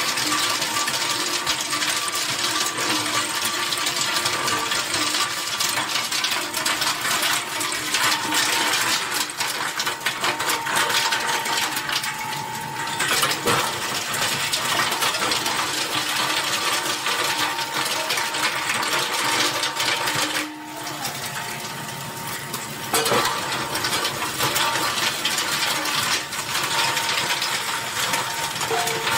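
Oil filter crusher breaking up used engine oil filters: a dense, continuous metallic clatter and rattle of steel casings and filter pieces being crushed. It dips briefly about two-thirds through, then carries on.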